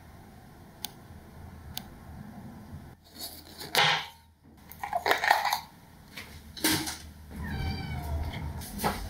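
A young kitten meowing, with one long drawn-out meow that bends in pitch near the end, and louder rough sounds in the middle. Light knife taps on a bamboo cutting board come as a green capsicum is sliced.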